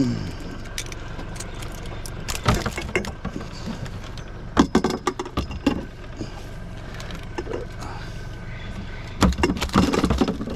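Boat's outboard motor running steadily at low revs, with bursts of metallic jangling and clattering three times.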